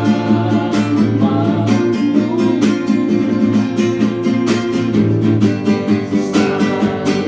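A slow Indonesian worship song: one voice sings a drawn-out line ending "...kasih dan rahmat-Mu" over a steadily strummed guitar.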